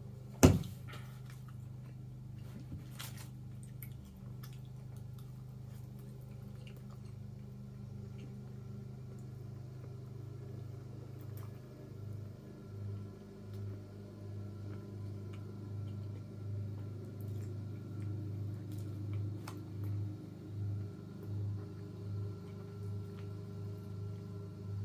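A bowl set down on a desk with a sharp clack about half a second in, then quiet chewing with faint ticks over a steady low hum. From about halfway the hum swells and fades in an even pulse a little more than once a second.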